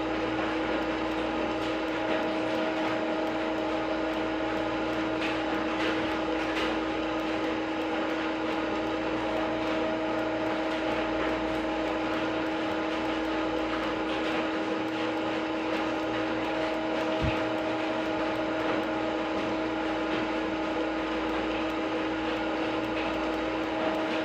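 Lathe simulator's running-machine sound: a steady hum with a constant tone over even noise, unchanging throughout.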